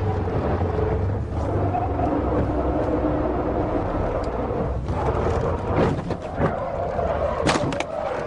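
Steady vehicle and road noise with a low hum, broken by several sharp knocks or clatters in the second half.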